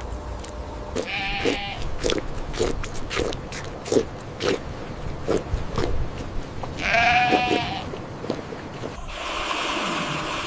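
Two short, quavering bleats from a farm animal, one about a second in and one about seven seconds in, with a run of soft, evenly spaced taps between them.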